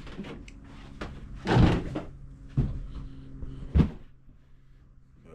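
Stored items being shifted and knocked about in a cluttered storage shed: a longer scraping knock about one and a half seconds in, then two sharp knocks about a second apart.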